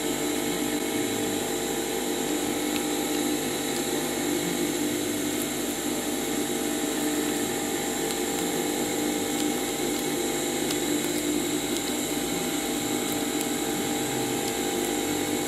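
A steady machine hum with a constant whining tone, unchanging in pitch and level.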